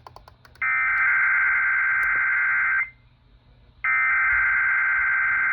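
NOAA Weather Radio SAME header data bursts for a Required Weekly Test, heard over a radio receiver: a harsh two-tone buzzing warble in two blocks of about two seconds each, about a second apart, the second running on past the end. A few faint clicks come just before the first burst.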